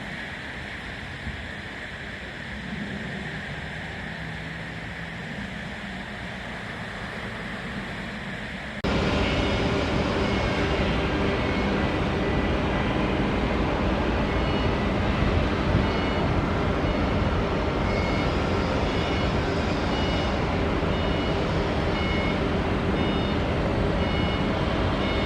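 Low steady outdoor noise with a faint engine hum, then, about nine seconds in, an abrupt change to louder steady machinery noise. Over this a high electronic warning beep repeats about once a second, of the kind sounded by reversing vehicles or moving yard equipment.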